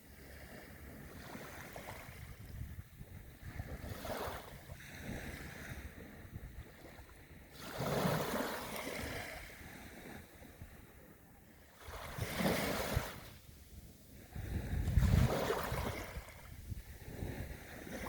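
Small waves breaking and washing up a sandy beach, coming in surges every three to four seconds over a steady background hiss of surf.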